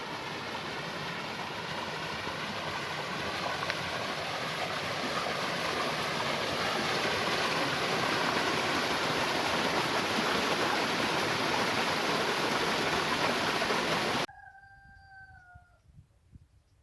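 Rushing water, a stream or waterfall close by, growing slightly louder and then cutting off abruptly about fourteen seconds in. In the quiet after the cut, a rooster crows once, faint and held, dipping at the end.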